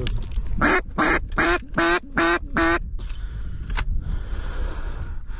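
A run of about seven loud duck quacks, evenly spaced about a third of a second apart, ending about three seconds in.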